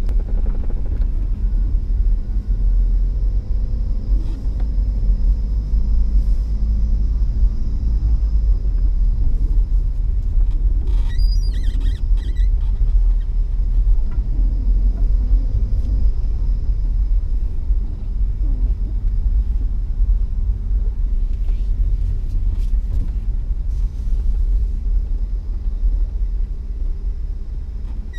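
Steady low rumble of a car's engine and tyres heard from inside the cabin while it drives, with a brief cluster of clicks about eleven seconds in.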